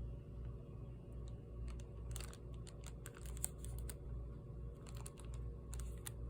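Scattered light clicks and crinkles from small objects being handled, coming in two clusters, one around two to three seconds in and one near the end, over a low steady hum.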